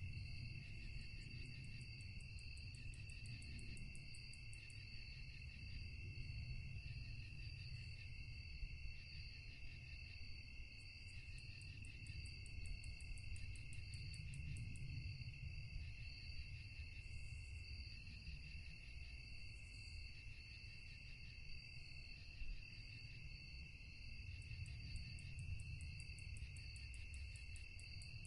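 Crickets chirping steadily in a night chorus, with a higher, rapidly pulsing insect call joining in three stretches, over a low background rumble.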